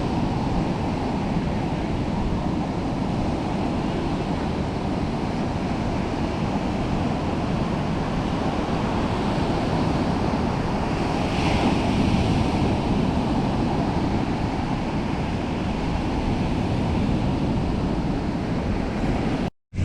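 Steady ocean surf washing on the beach, mixed with wind buffeting the microphone.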